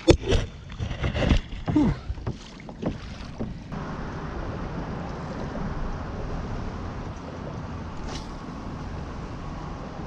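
Knocks and rubbing as a camera is handled and set in place on a fishing kayak, then a steady wash of water and wind noise as the pedal-drive kayak moves along.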